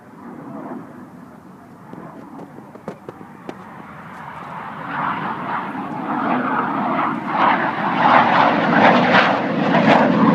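Yak-130 jet trainer's twin turbofan engines passing in a flying display, a distant rush at first that grows steadily louder from about four seconds in to a loud, rough jet roar.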